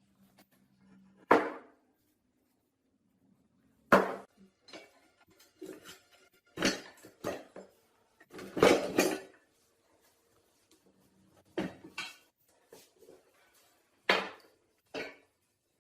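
Irregular metal clinks and knocks, about ten in all, with short ringing after each; the loudest come a little after one second and about four seconds in, with a quick cluster around nine seconds. Steel parts and tools of a hydraulic floor jack being handled and set down.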